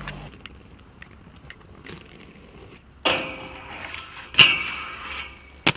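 Inline skates hitting the ground twice, each hit followed by about a second of wheels rolling or grinding as the skater lands. A sharp click comes near the end.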